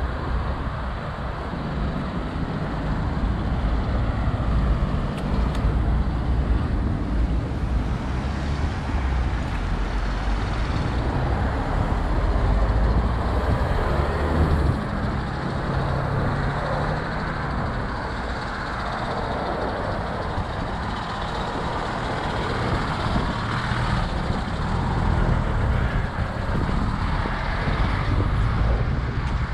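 Street traffic: the low engine rumble of a heavy motor vehicle, swelling to its loudest about halfway through, over a steady hum of passing traffic.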